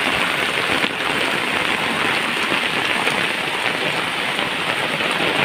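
Heavy rain pouring steadily onto flooded, muddy ground, the drops splashing into standing water.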